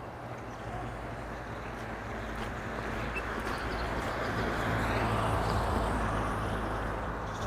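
A motor vehicle passing by, its engine and tyre noise growing louder to a peak about five seconds in, then easing off.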